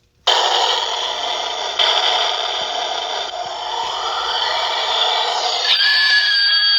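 Caltoy Dracula animated plush switched on: its small built-in speaker plays a tinny, crackly sound effect while the toy shakes. Near the end the sound changes to a held tone that falls slightly in pitch.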